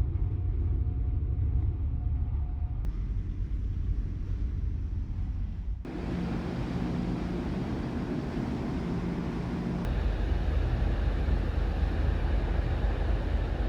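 Steady low rumble aboard the ferry Naminoue underway, from its engines and the wind. The sound changes abruptly about three, six and ten seconds in.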